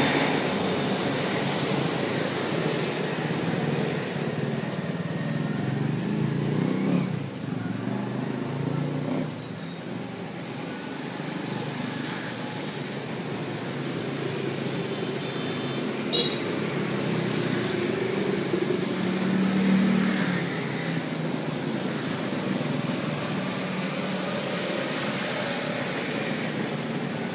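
Steady background road-traffic noise with vehicles passing, and a short high beep with a click about halfway through.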